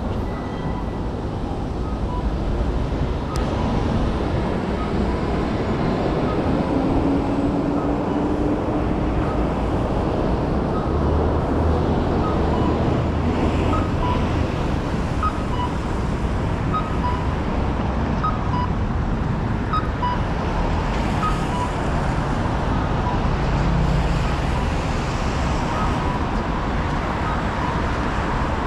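Busy city street ambience: steady traffic noise from cars passing on the road, with a faint short two-note electronic tone repeating regularly.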